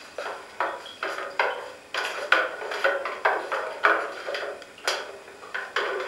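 A rapid series of sharp clattering knocks of hard objects, about two a second, some with a clinking, dish-like ring.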